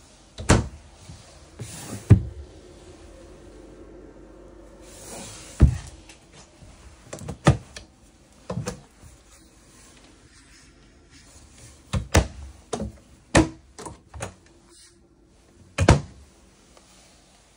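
Wooden cabinet doors being opened and shut by their knobs, giving sharp knocks and clacks every second or two, about nine in all, a few in quick pairs.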